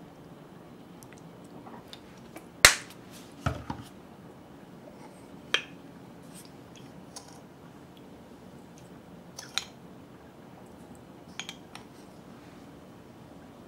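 Scattered sharp clicks and taps of bottles and seasoning containers being handled over a stainless steel bowl of raw chicken thigh, the loudest about two and a half seconds in and a quick cluster a second later, over a faint steady hiss.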